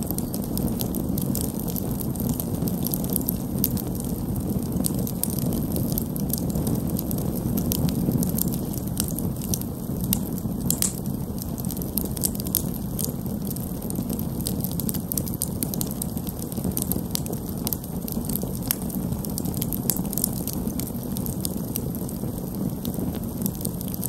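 Wood campfire burning: a steady low rush of flames with frequent, irregular sharp crackles and pops from the burning wood.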